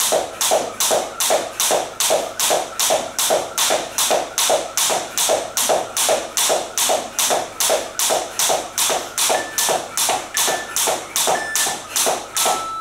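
Jump rope slapping the floor on every turn, a sharp tap about three times a second, with her feet landing in time. Near the end, an interval timer counts down with three short beeps about a second apart and then one longer, lower beep marking the end of the set.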